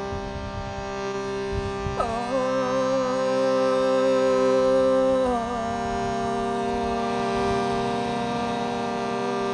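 Shruti box holding a steady reed drone of several notes, with a woman singing over it. Her voice comes in with a falling slide about two seconds in and moves to another held note about halfway through.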